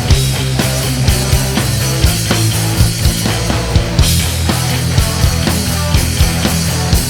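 Punk-rock band playing an instrumental passage with no vocals: guitar and bass chords over drums keeping a steady beat of about two strong hits a second.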